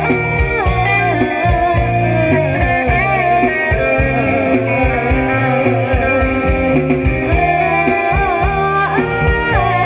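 Live band music through an outdoor three-way PA system: a woman singing over electric guitar and bass.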